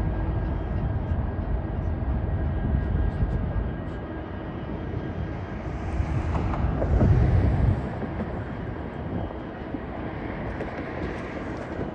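Low, steady rumble of diesel freight locomotives idling while they wait for a crew change. The rumble swells louder for a moment about six to eight seconds in, then eases to a lighter hum.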